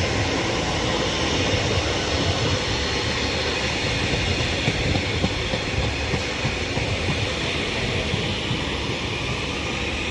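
Northern Class 331 electric multiple unit running into the platform: a loud, steady rumble of wheels on rail with a hissing roar, a few faint steady tones coming in near the end.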